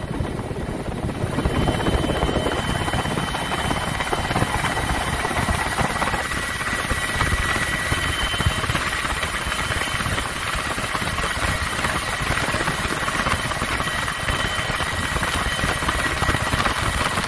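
Loud, steady engine and airflow noise of an aircraft in flight, heard from inside its cabin, with faint steady whines over the noise.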